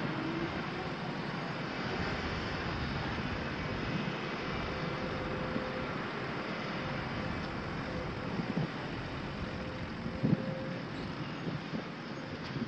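Heavy machinery at an earthworks site: the diesel engines of a tractor hauling a dump trailer past and a working excavator, a steady running noise with wind on the microphone. A few knocks come in the second half, the sharpest about ten seconds in.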